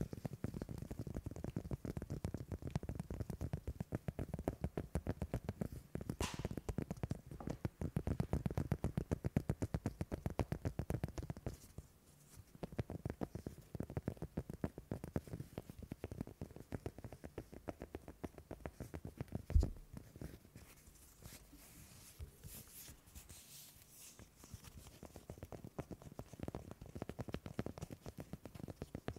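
Fingernails scratching quickly over a leather strap held close to the microphone, a fast run of rubbing strokes. The strokes are quieter in the middle, where one low thump sounds about twenty seconds in, and grow louder again near the end.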